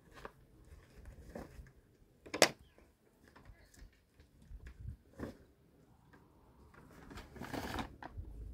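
A few scattered knocks and clatters, the sharpest about two and a half seconds in, with a brief rustling swell near the end.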